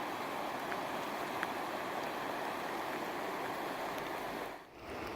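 Fast river water rushing steadily: the Nenana River's flow, with a brief drop in level near the end.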